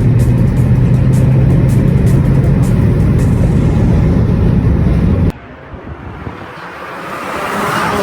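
Car engine running steadily at a constant pitch, cut off abruptly a little past five seconds, followed by a swelling whoosh.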